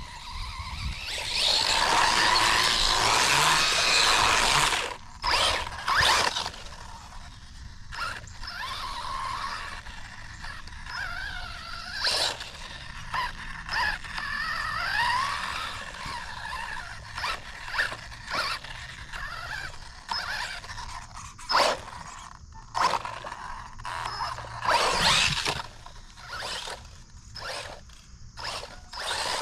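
Brushless motor of a 1/16-scale HBX 16889A Pro 4x4 RC truck whining up and down in pitch as the throttle is worked in short bursts, with the tyres scraping and crackling over the forest floor. The longest, loudest run comes in the first few seconds, then stop-start bursts with sharp clicks and knocks.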